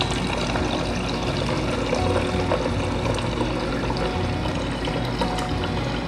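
Whirlpool refrigerator's door water dispenser running steadily, water streaming into a large container. The water is being drawn off to flush cleaning vinegar out of the filter, storage tank and water lines.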